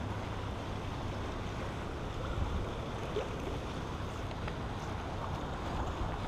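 Steady wind and water noise with a low rumble, with no single event standing out.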